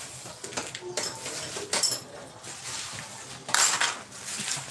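Metal tools and parts clinking and knocking while work goes on in a car's engine bay, with a short rushing noise about three and a half seconds in.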